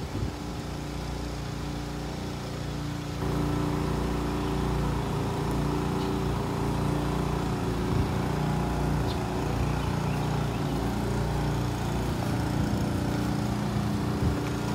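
An engine running steadily at a constant speed, a little louder from about three seconds in.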